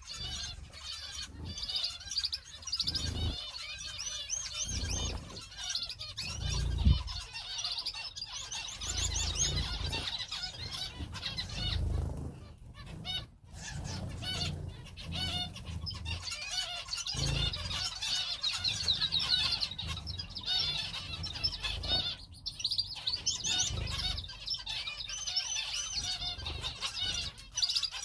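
A flock of small cage birds (finches and canaries) chirps and trills constantly, many high, quick calls overlapping. Low thumps and wing flutters come every few seconds.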